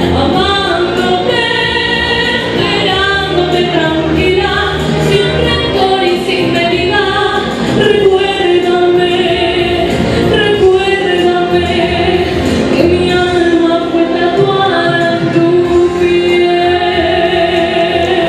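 A young woman singing a song live into a handheld microphone over a musical accompaniment.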